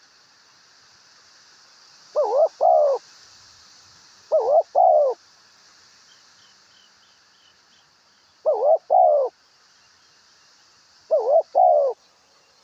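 A dove cooing, close and loud: four two-note coos a few seconds apart. A steady high hiss runs underneath, and a small bird chirps faintly in a short series midway.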